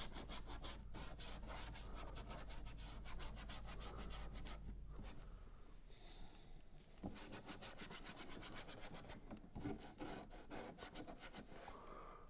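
Paintbrush scrubbing paint onto the painting in quick, short strokes, with a brief pause about halfway through.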